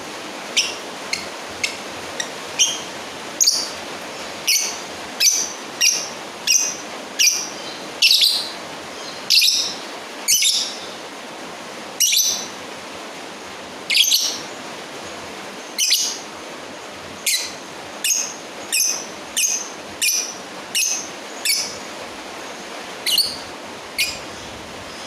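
Lovebird calling to a rival with short, shrill chirps, one after another at roughly one or two a second with brief pauses between, over a steady hiss.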